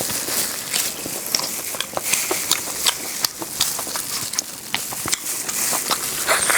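Close-miked eating: chewing and biting with many irregular sharp crackles and wet mouth clicks.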